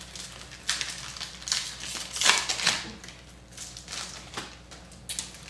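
Foil trading-card pack being torn open by hand and the stack of cards pulled out, with the wrapper crinkling and rustling in irregular bursts.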